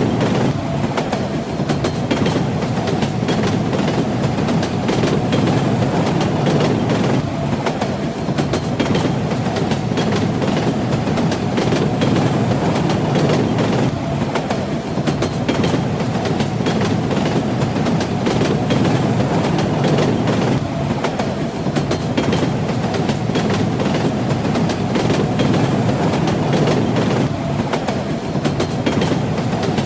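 Train running on the rails: a steady low rumble with the clatter of the wheels over the rail joints.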